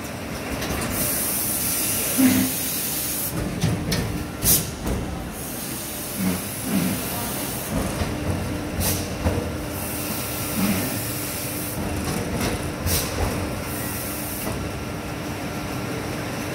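Challenge CMT-130 automatic cutter/trimmer running: a steady machine hum with stretches of hiss and a sharp clack about every four seconds.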